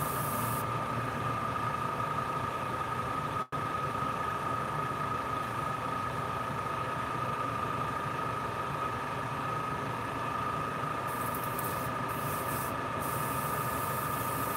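Airbrush compressor running steadily with a hum and a high tone, while the airbrush hisses air in spurts: the hiss stops about half a second in, returns in short bursts late on, and resumes near the end. A momentary break in the sound comes about three and a half seconds in.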